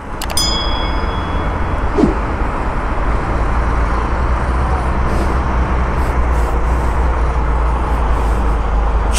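Heavy tractor-trailer trucks hauling lowbed trailers with excavator parts drive past close by, with a steady, loud low engine rumble and road noise.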